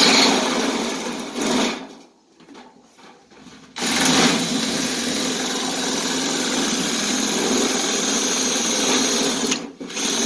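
DeWalt power cutting tool running while cutting a straight line. It runs for about two seconds, stutters in short bursts, then runs steadily from about four seconds in, with a short stop near the end.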